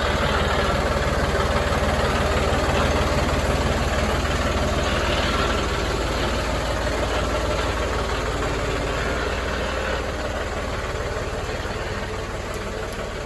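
Vehicle engine running steadily with a low rumble, easing off a little near the end.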